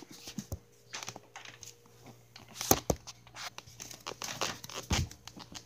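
Handling noise: irregular rustling, rubbing and clicking of the recording device being moved about and covered, with two louder knocks about halfway through and near the end. A faint steady hum runs underneath.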